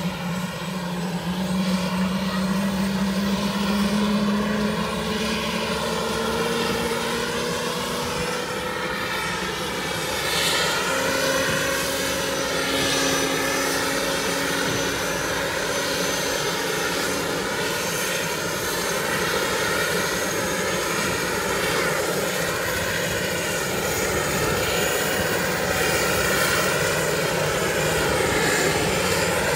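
Helicopter sitting on a superyacht's helideck with its turbine engines running: a steady whine that slowly rises in pitch.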